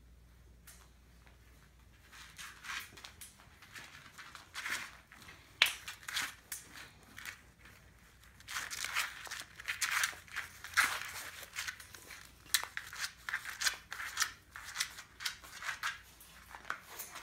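Irregular scratching and clicking from a bearded dragon's claws scraping against the wire pen panels and the tile floor. It starts about a second in and comes in uneven flurries, louder in the middle.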